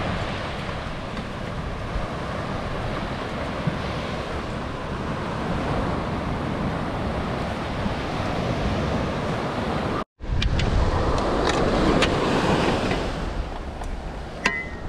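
Surf breaking and washing up on a sandy beach, with wind on the microphone. About ten seconds in it cuts out briefly and comes back louder, with a few clicks and knocks as metal rod holders on a beach cart are handled.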